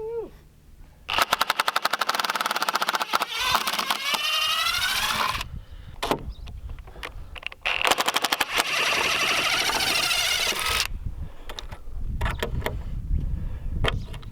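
Cordless impact driver hammering as it backs screws out of the playset's wooden framing. There are two long runs of rapid clicking with a wavering whine, one starting about a second in and the other about eight seconds in.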